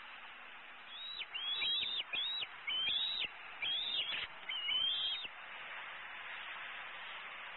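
Bald eagle calling a run of high, quick chittering notes that starts about a second in and lasts about four seconds, over steady background hiss.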